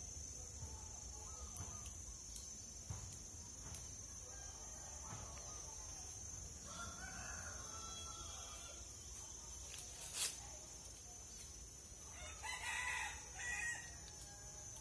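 A rooster crowing several times, loudest near the end, over a steady high-pitched whine. A single sharp click about ten seconds in.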